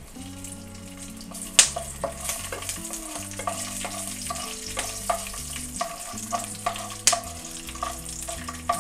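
Urad dal and garlic cloves sizzling in hot sesame oil in a nonstick wok, stirred with a wooden spatula. Two sharp knocks come about one and a half seconds in and again about seven seconds in.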